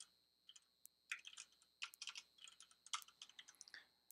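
Typing on a computer keyboard: quiet keystroke clicks in short irregular runs with brief pauses between, as a line of code is entered.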